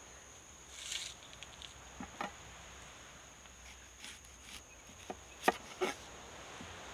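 Large kitchen knife cutting a red onion on a wooden chopping board: two sharp knocks about two seconds in and three more near the end, the loudest about five and a half seconds in. Insects keep up a steady high drone underneath.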